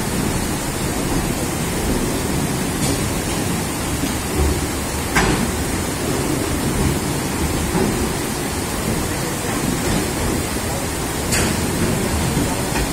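Goods-train wagon wheels rolling slowly through floodwater over the track, churning and splashing the water in a steady rushing noise, with a few sharp clicks.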